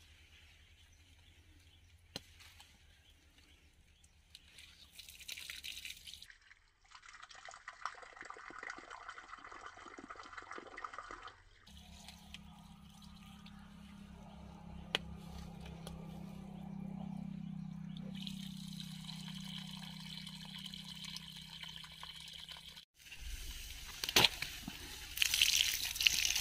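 Water running from a hole in a homemade drip-irrigation pipe and splashing onto soil, with a louder gush near the end.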